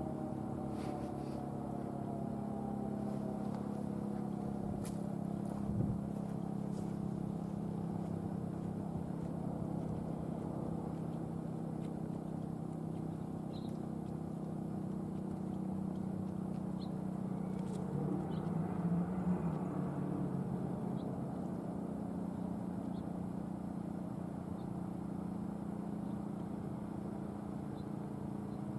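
Federal Signal STH-10A electromechanical siren winding down, its falling tone fading out in the first couple of seconds. A steady low hum and outdoor ambience are left behind.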